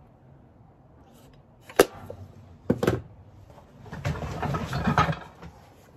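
Two sharp knocks about a second apart, then rustling as hands rummage through items in a plastic storage tote.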